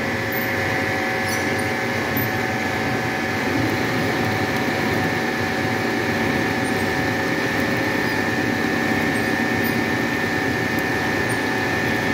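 Milling machine running steadily, its end mill cutting a flat on a bolt's hexagon head while coolant is squirted on: a continuous, even machine whine with a high held tone.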